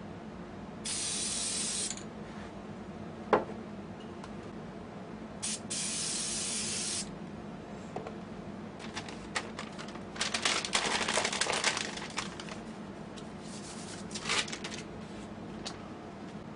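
Aerosol spray-paint can hissing in two steady bursts of about a second each, with a sharp click between them. About ten seconds in comes a couple of seconds of short, crackly hissing and rustling, with more of it a few seconds later.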